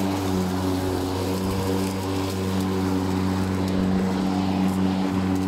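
Ego 56V battery-powered self-propelled lawnmower running as it cuts through long grass, its motor and blade giving a steady hum that holds its pitch.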